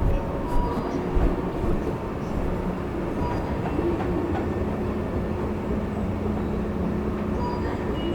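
Seoul subway train running on the rails: a steady low rumble, with a few low knocks in the first second or so and faint thin squealing tones above it.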